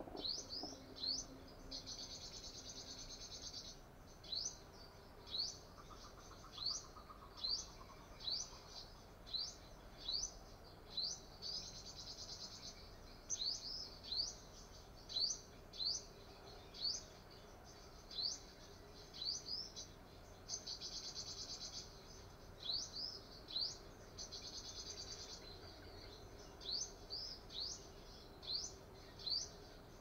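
Sunbird calling over and over: short, sharp rising chirps, about one or two a second. A few longer high buzzing trills come in about two, twelve and twenty seconds in.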